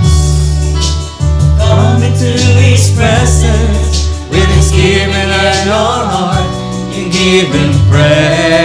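Praise-and-worship song: band music with a strong bass line and keyboard, with singing voices coming in after about a second and a half.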